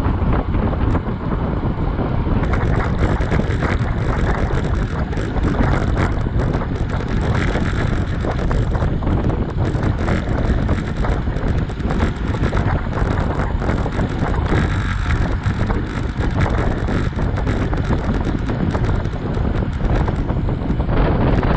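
Wind rushing over the microphone of a camera on a moving road bicycle, heaviest in a low rumble, with tyres hissing on tarmac and small clicks and rattles from the bike.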